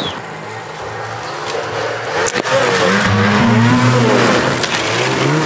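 Snowmobile engine revving, its pitch rising and falling from about halfway in, over a steady running noise, with one sharp click just after two seconds.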